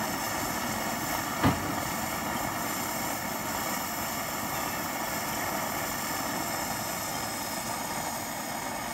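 Coleman 530 gasoline pressure stove's burner, warmed up and burning with a steady rushing noise. A single short knock about one and a half seconds in.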